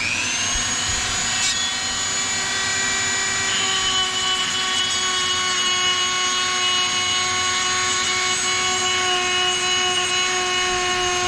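Dremel rotary tool spinning up and running at a steady high whine while blending a wooden knife handle, its pitch shifting slightly a few seconds in as it takes load.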